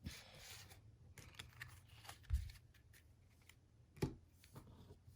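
Faint handling of trading cards: soft rustles and light taps, with a dull knock about two seconds in and a sharper click about four seconds in.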